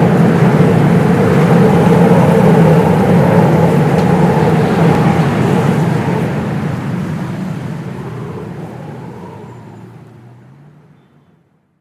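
A loud, dense rumbling noise, steady for about six seconds, then fading out slowly to silence near the end.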